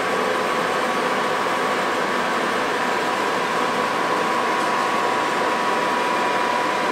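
Steady machine-shop drone: a constant hiss with a steady hum tone running through it, unchanging throughout.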